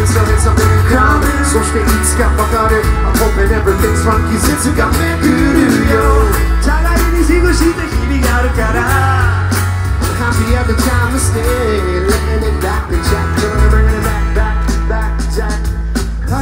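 Pop-rock band playing live through a PA: acoustic guitars and drums over a strong bass, with a sung vocal line.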